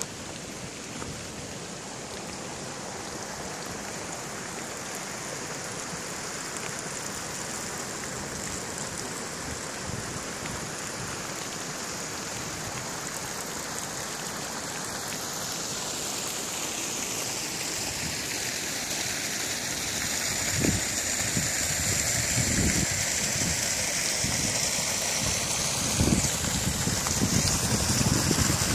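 Water rushing steadily over a low rock-ledge waterfall, growing steadily louder. A few dull thumps come in the second half.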